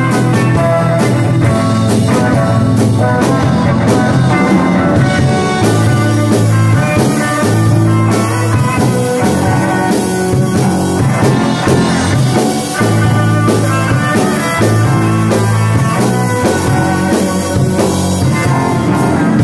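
A small band playing an instrumental exotica-surf-jazz-rock piece on a Tama drum kit and electric guitars, loud and without vocals.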